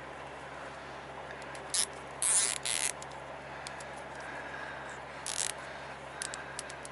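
Plastic zip ties being pulled tight, their ratchets giving short rasping zips about two seconds in and again around five seconds, with a few small clicks near the end, over steady background noise.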